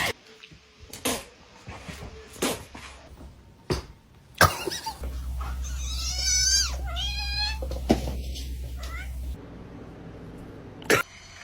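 A domestic cat meowing: a few drawn-out, wavering meows about halfway through, over a steady low hum, after a few sharp knocks earlier on.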